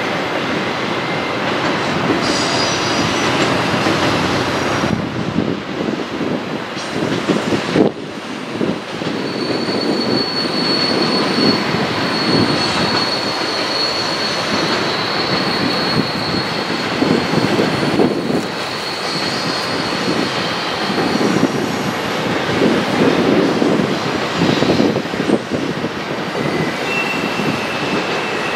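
Long double-stack intermodal freight train rolling past on a curve: a steady rumble and clatter of wheels on rail, with high wheel squeal from flanges grinding against the curved rail. One long squeal holds from about ten seconds in to about twenty seconds in, with shorter squeals before and near the end.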